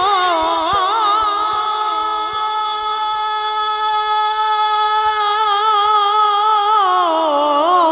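A man singing a naat (Urdu devotional song) unaccompanied into a microphone, holding one long drawn-out vowel. The note wavers with ornaments at first, is held steady through the middle, then slides down in pitch near the end.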